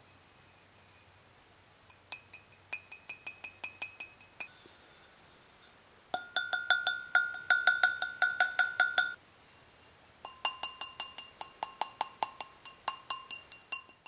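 Fired primitive clay pots tapped rapidly with a finger, one pot after another: three runs of about five or six taps a second, each pot ringing at its own clear pitch. The clear ring is the usual sign that a fired pot has come through without a crack.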